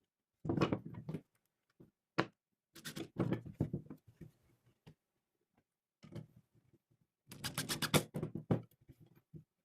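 Knocks and clatter of wooden pieces being handled and worked by hand, in several short bouts, ending in a quick run of sharp knocks.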